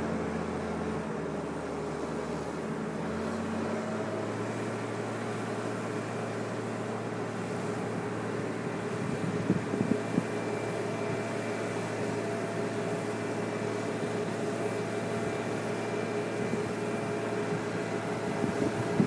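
John Deere 750J crawler dozer's diesel engine running steadily under work, its pitch stepping up slightly in the first few seconds. A few short clanks come about halfway through and again near the end.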